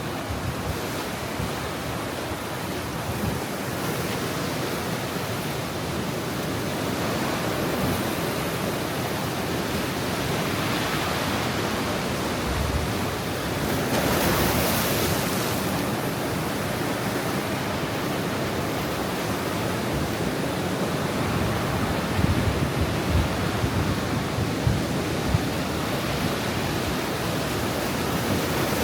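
Ocean surf washing against a rocky shore at high tide: a continuous rush of breaking waves and foam, swelling for a couple of seconds near the middle, with a few low thuds of water hitting rock later on.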